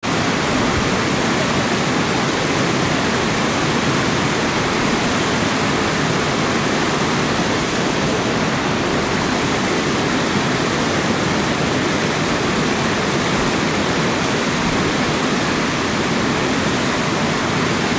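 Steady, loud rushing of water with an even hiss and no changes.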